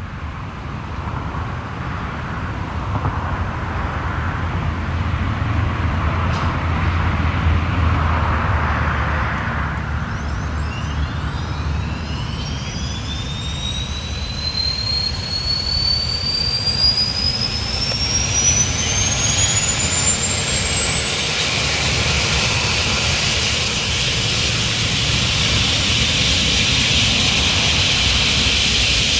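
Eurocopter EC135 helicopter's turboshaft engine starting up: a low rumble, then from about ten seconds in a turbine whine that climbs steadily in pitch and grows louder as the engine spools up.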